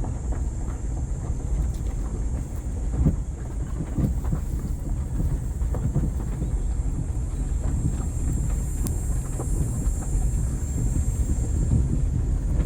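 Steady low rumbling noise with wind buffeting the microphone, and a faint steady high hiss above it.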